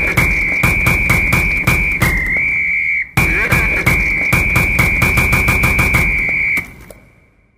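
Background music: a high, held whistle-like tone over a quick, steady beat, breaking off briefly about three seconds in and fading out near the end.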